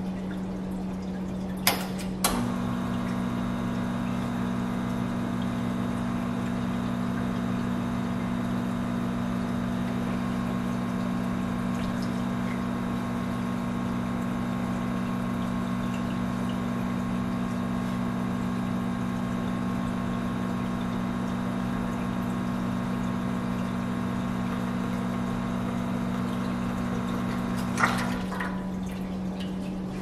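Lelit Bianca dual-boiler espresso machine pulling a shot: a click about two seconds in as its rotary pump starts, the pump running steadily for about 25 seconds, then another click as it stops near the end.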